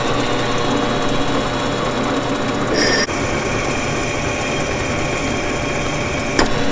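Ryobi drill press running steadily, its glass drill bit grinding a hole into a glass plate. A brief high squeal comes about three seconds in, and a click just before the end.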